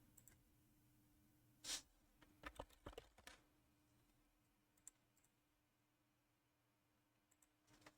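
Near silence broken by a few faint computer clicks: a small cluster about two to three seconds in and one more near five seconds.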